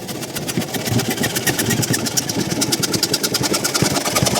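A small motor-driven power tool running steadily with a fast, even rattle.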